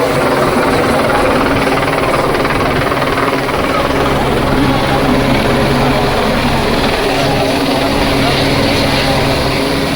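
Helicopter flying overhead, its engine and rotor running steadily and loudly, with voices mixed in.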